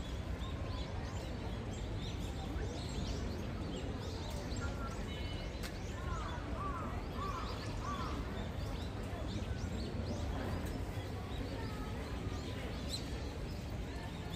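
Outdoor ambience: a steady low rumble with small birds chirping throughout, and a short run of several rising and falling calls a little past the middle.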